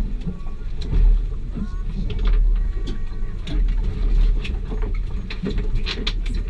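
Small powerboat at sea: a low rumble of wind and water against the hull, swelling every second or two, with scattered sharp clicks and knocks.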